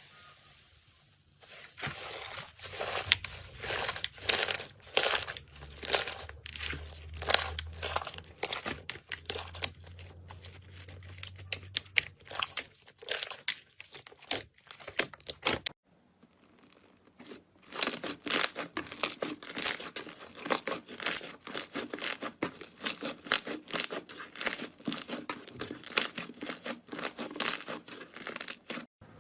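Slime being pressed and kneaded by hand: a dense run of crackling clicks and pops. They break off briefly about halfway through, then resume.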